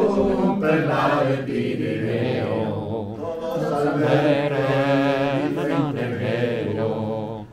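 A man singing solo, unaccompanied, in long drawn-out notes with a wavering vibrato.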